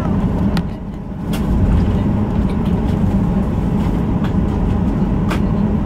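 Cabin noise of a Boeing 737-800 taxiing: a steady low rumble from its engines and rolling gear, with a few light clicks and rattles.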